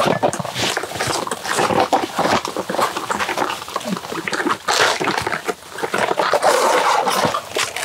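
Knives cutting into fresh banana pseudostems and the layers being torn off by hand: dense, irregular crunching and tearing of wet, fibrous plant stems.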